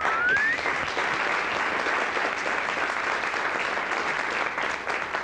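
Audience applauding steadily, with one whistle that rises and stops about half a second in.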